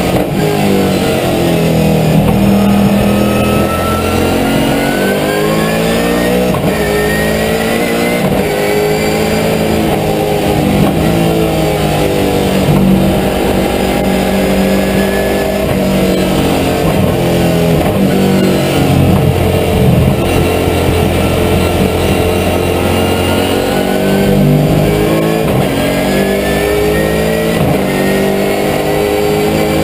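Holden V8 Supercar's V8 engine heard from inside the cockpit, revving up and dropping back again and again as the car accelerates, changes gear and brakes through the corners of a lap.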